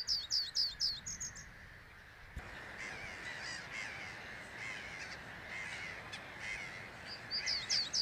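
Male reed bunting singing: a short phrase of quick, high, downward-slurred notes at the start, repeated near the end. A fainter, lower bird call repeats steadily from a couple of seconds in.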